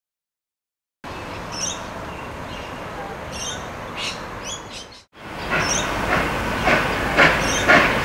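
Birds chirping over a steady background hiss for a few seconds. After a brief break about five seconds in, a Victorian Railways J class steam locomotive is heard working a train, with about two exhaust beats a second growing louder.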